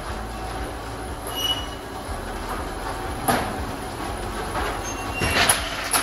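Metal roller shutter being pulled down: the slats rattle and squeal in their guide rails, with a sharp knock about three seconds in and heavier clatters near the end as it comes down.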